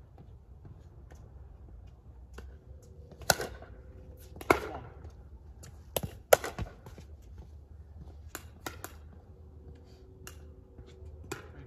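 Pickleball rally: sharp pops of paddles hitting a plastic pickleball and of the ball bouncing on the hard court, spaced irregularly about a second or two apart.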